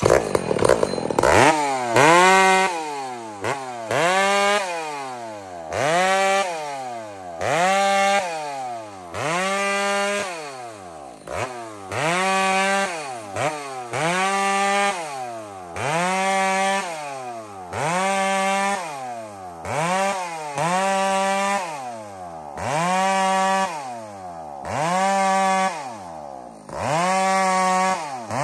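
Two-stroke chainsaw bucking a thin downed log into short pieces. The engine revs up to full throttle, holds for about a second, then drops back toward idle, roughly once every two seconds, over and over. The first second or so is a rougher, louder rush.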